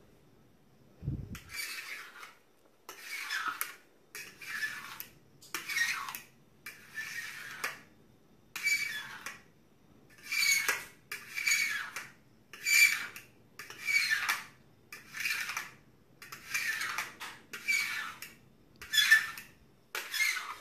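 Fork dragged through a thin layer of shaving cream and scraping the bottom of a metal baking tray, in about fifteen regular strokes, roughly one a second.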